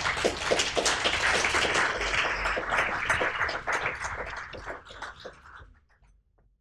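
Audience applauding, many hands clapping at once, dying away toward the end.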